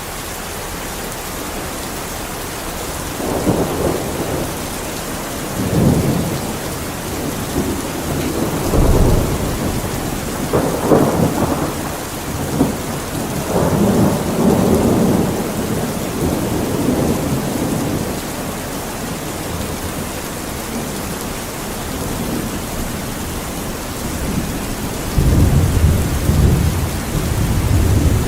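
Steady heavy rain hissing, with rolls of thunder rumbling again and again through the first half and once more near the end.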